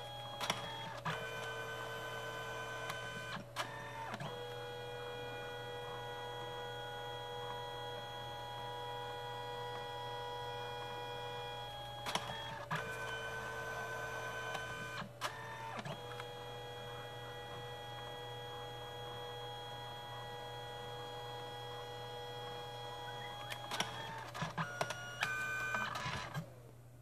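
Canon Selphy CP1200 dye-sublimation photo printer printing: its feed motor runs with a steady whine in long stretches, broken by clicks as the paper is driven in and out between passes. Near the end, a burst of clicking and rustling as the finished print is handled.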